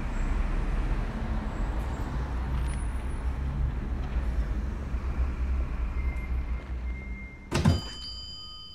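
City bus engine running with a steady low rumble. About seven and a half seconds in, a shop door opens with a sharp clunk and a door bell rings on several pitches, fading away.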